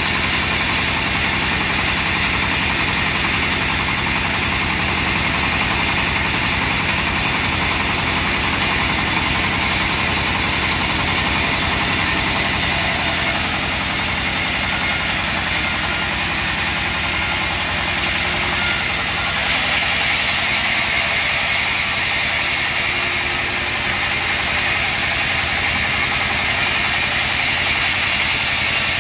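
Diesel engine driving a band sawmill, running steadily at a constant speed.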